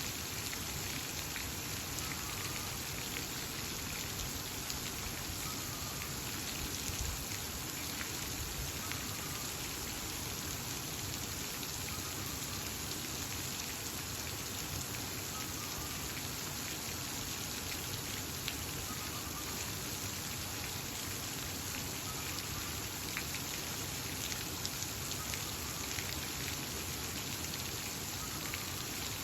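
Steady water noise with faint, short bird chirps every few seconds.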